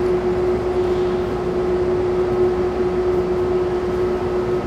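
Steady background hum with one constant tone over an even noise bed, like ventilation or shop machinery; threading the rod by hand makes no sound that stands out above it.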